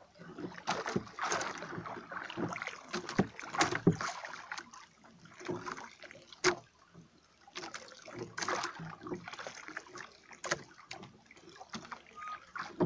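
Irregular knocks, clicks and rubbing noises from a small boat as a handline is hauled in hand over hand, with a sharp click about six and a half seconds in.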